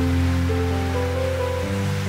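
Background music of slow, sustained chords that change every half second or so, over a steady wash of sea waves.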